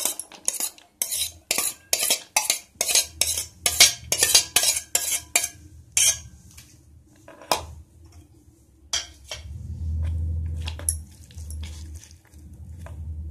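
Steel spoon clinking and scraping against a stainless steel plate as chopped onion is pushed off into a bowl: a quick run of sharp metal clinks, two to three a second, thinning out after about six seconds. A low rumble follows near the end.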